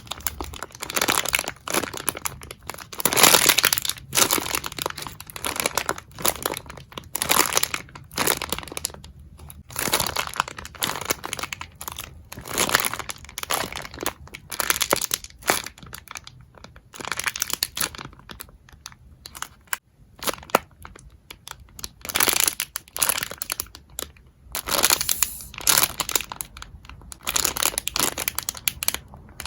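Packaging crinkling and rustling as it is handled and unwrapped, in irregular bursts every second or so, with some tearing.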